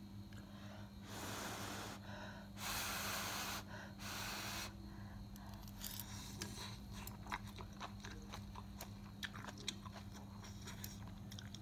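A person eating instant noodles: three long, airy slurps in the first few seconds, then chewing with many small, wet clicks. A steady low hum runs underneath.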